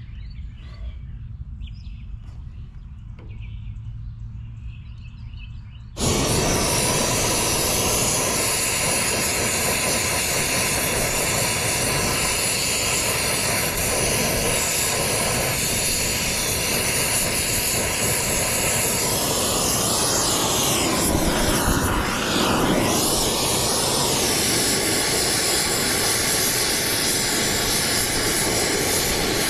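A loud, steady rush of hissing gas starts abruptly about six seconds in, after a quieter low hum, and keeps going; a thin steady tone joins it for the last few seconds.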